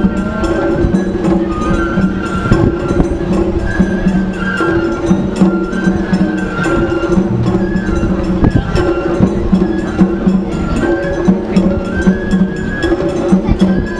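Parade music: a repeating stepped melody over a busy beat of sharp clicking percussion.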